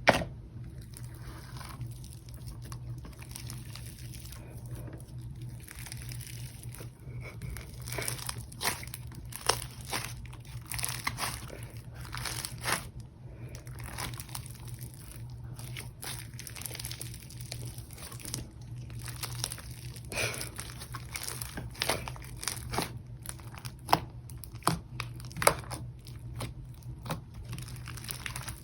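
Slime packed with foam beads being squished and pulled in the hands, giving irregular crackling and crunching clicks.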